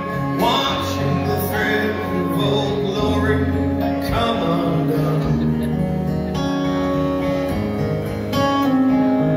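Live music from a concert: acoustic guitars playing a country-style song through the venue's sound system, with no lead vocal line in this stretch.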